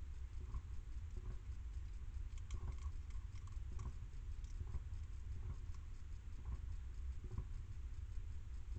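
Hedgehog eating from a steel dish: irregular small clicks and crunches of chewing and of its snout against the metal, thickest about two and a half to four seconds in, over a steady low hum.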